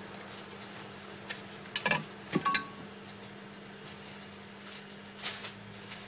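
Small hard objects clattering and clinking as they are handled, with a cluster of knocks about two seconds in, one of them ringing briefly, and a lighter knock about five seconds in. A steady low hum runs underneath.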